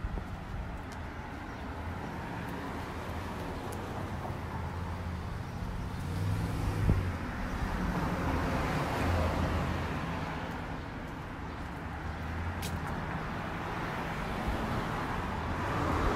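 Road traffic: cars passing on the street, one swelling past about halfway through and another building near the end.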